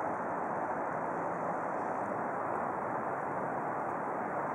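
Steady outdoor background noise, an even rush with no distinct events.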